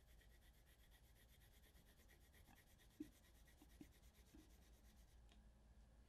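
Faint coloured pencil shading on paper in rapid, even back-and-forth strokes. It stops about five seconds in.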